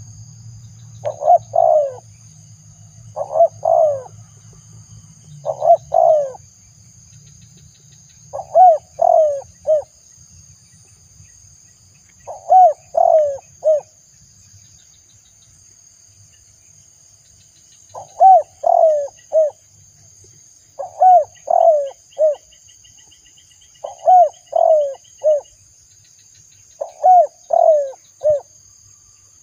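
Spotted dove cooing: about nine phrases of three or four low coos each, a phrase every two to three seconds with a longer pause in the middle. A steady high insect trill runs underneath.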